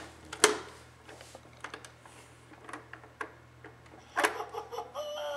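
A baby handling plastic toys: scattered light clicks and knocks, with a louder knock about four seconds in. A short baby babble near the end.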